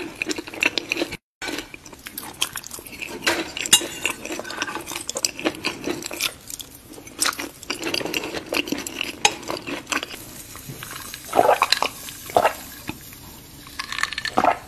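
A metal fork clinking and scraping against a plate in a run of short, sharp clicks, with a brief dropout about a second in.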